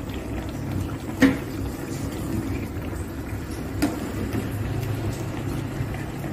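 Broth simmering in a metal pot with a steady low rumble, stirred with a metal ladle that clinks against the pot twice: sharply about a second in, and more lightly near four seconds in.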